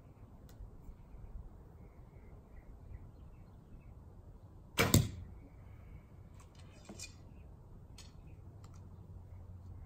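Junxing Pharos II F261 recurve bow shot with its string unsilenced: the string is released from full draw once, a sharp loud snap about five seconds in, followed by a few faint handling clicks.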